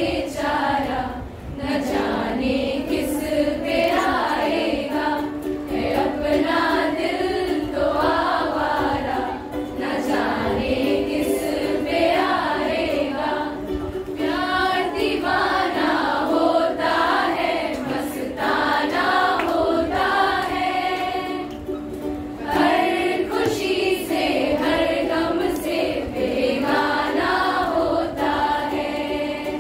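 A group of voices singing a song together over a steady held instrumental accompaniment.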